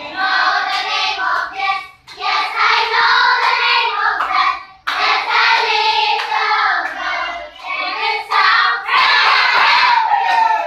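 A class of young children singing together in unison, in phrases broken by short pauses.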